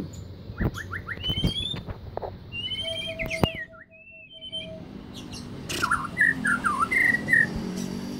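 White-rumped shama singing a run of quick whistled notes and chirps that rise and fall, in canary-like phrases the bird mimics. It goes quiet for a moment about halfway through, then gives more short chirps.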